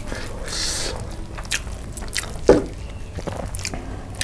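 Sauce-coated fried chicken being torn apart by a gloved hand: wet, sticky squelching with scattered crackles of crispy skin, and one louder crack a little past halfway.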